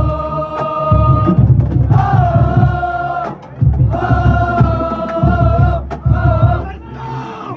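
Marching band playing: brass holding loud sustained chords in three swells, over heavy pounding bass drums.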